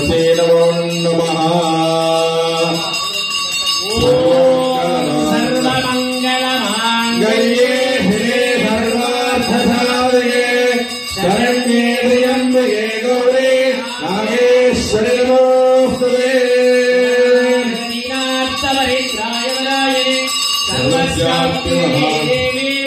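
Devotional music: a male voice singing a drawn-out chant over accompaniment.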